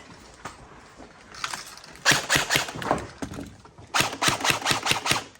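Airsoft gun firing two rapid bursts of sharp snapping shots, the first about two seconds in and the second about four seconds in.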